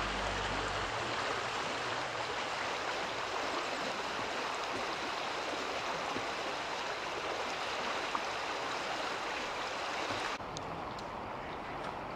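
Steady running water of a fast-flowing stream, an even noise. About ten seconds in it drops suddenly to a quieter, duller flow.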